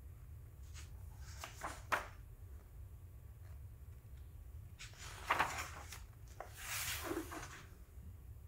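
Pages of a paperback picture book being turned and handled: a few short paper rustles with a sharp tap about two seconds in, then longer rustles about halfway through and again past the middle, over a low steady hum.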